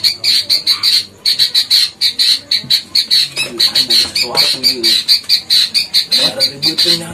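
Rapid chirping in an even rhythm, about six chirps a second, with faint low voices partway through.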